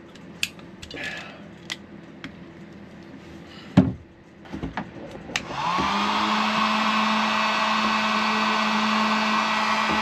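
A few light clicks and taps of wire handling, then a heat gun is switched on about five seconds in. It spins up with a short rising whine and then runs steadily, blowing hot air to shrink the heat-shrink tubing over the ground wire's ring terminal.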